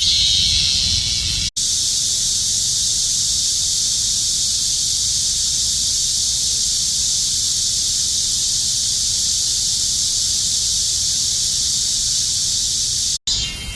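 Cicadas singing in a steady, continuous high-pitched buzz, with no pulsing. The sound cuts out for a split second twice, once near the start and once near the end.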